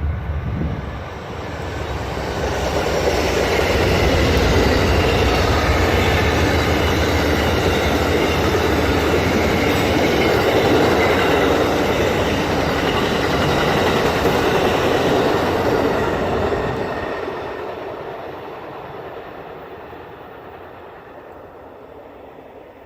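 A train passing, its wheels clicking over the rail joints. It builds over the first few seconds, stays loud through the middle and fades away over the last several seconds as it recedes.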